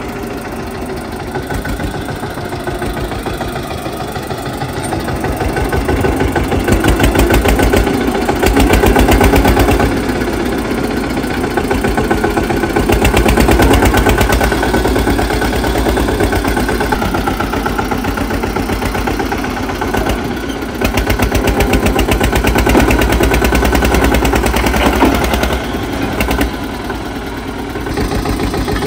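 Tractor diesel engine running, growing louder for a few seconds at a time, several times over.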